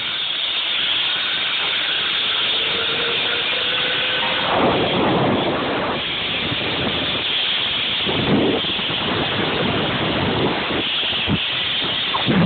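Wind rushing over a phone's microphone during a ride down a zip wire: a steady rush that surges louder a couple of times, with a faint rising whine a few seconds in.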